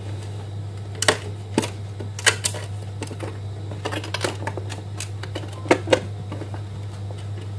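Irregular sharp clicks and knocks as hands handle and press on the metal housing and frame of an LED floodlight, two of the loudest close together about three-quarters through, over a steady low hum.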